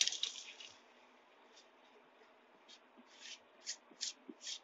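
Spatula scraping crushed Oreo biscuit and butter crumbs out of a plastic bowl into a steel cake tin: a longer scrape fading in the first second, then a run of short scrapes about every half second in the second half.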